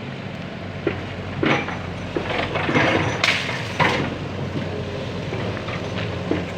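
Excavator's diesel engine running steadily, with a series of sharp metallic clanks and scrapes, the loudest a little over three seconds in.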